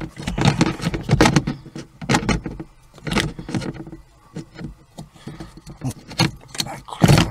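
Irregular knocks, clicks and scrapes of a plastic accelerator pedal assembly being handled and pushed onto its metal mounting bracket, with the sharpest knock near the end.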